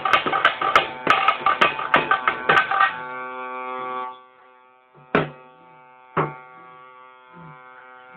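Ritual drumming for a Bhuta Kola dance: fast drum strikes for about three seconds, then a held droning note with single drum beats about once a second.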